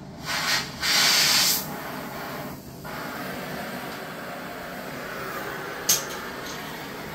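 Two short bursts of hissing pressurized gas, then a steadier, quieter hiss, with one sharp click about six seconds in.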